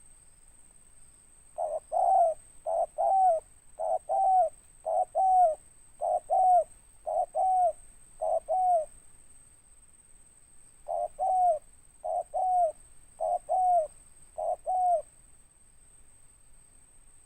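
Spotted dove (tekukur) cooing: seven two-part coos about a second apart, each a short note then a longer falling one, then after a pause of about two seconds four more.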